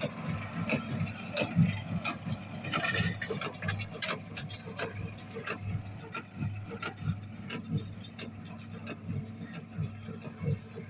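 Tractor engine running steadily, with irregular clicks and rattles over it.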